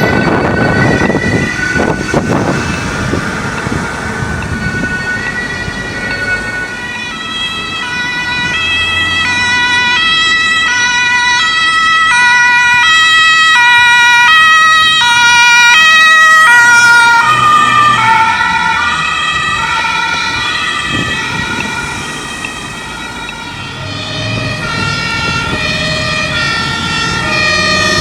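Several German two-tone emergency vehicle sirens sounding at once, out of step with each other, as vehicles drive by on an emergency run. The sirens are loudest a little past the middle, then their tones fall slightly in pitch. Engine and traffic rumble comes through at the start and end.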